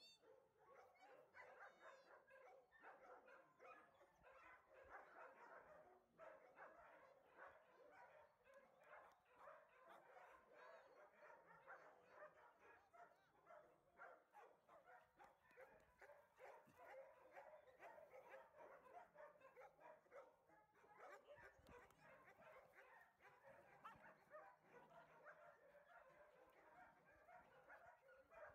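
A group of small dogs barking and yipping continuously, many barks overlapping, heard faintly.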